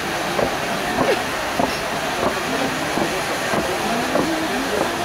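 Several pyrotechnic fountains (gerbs) burning at once, giving a steady rushing hiss.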